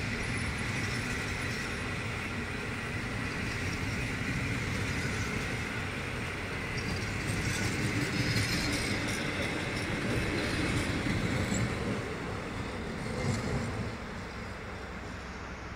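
PKP Intercity passenger coaches rolling past on the rails, a steady rumble of wheels on track. It is loudest as the last coach goes by, then falls off as the train draws away near the end.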